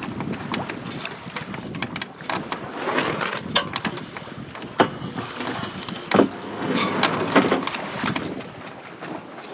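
Wind and water rushing along a sailboat's hull under sail, with scattered sharp knocks and clatters throughout.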